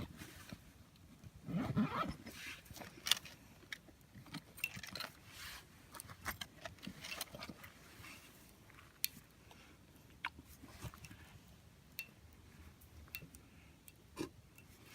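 Small wood fire crackling in a compact B6君 folding fire grill: scattered sharp snaps and pops at irregular intervals, with a louder rustle or clatter about two seconds in.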